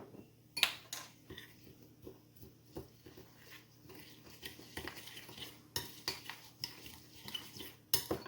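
A spoon stirring and scraping a damp crumble topping of flour, oats, brown sugar and milk in a small dish: irregular clinks and scrapes against the dish, with a few sharper taps near the start and near the end.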